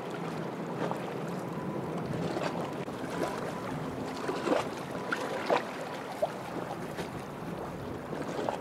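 Small waves lapping and splashing close by, with irregular plinks and slaps over a steady wash of water and a faint low hum.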